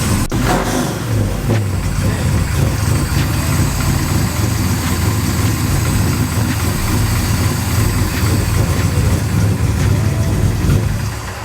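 Fox-body notchback Mustang's engine running loud and steady at idle, with a deep rumble.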